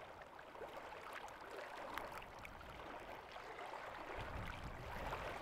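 Small lake waves lapping and splashing against shoreline rocks: a steady wash with many small splashes. A low rumble comes in about four seconds in.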